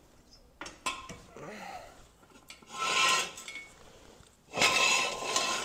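Steel floor jack and jack stands clanking and scraping as they are moved under a lifted car: two light clicks, then two rasping metal scrapes, the second louder and about a second long near the end.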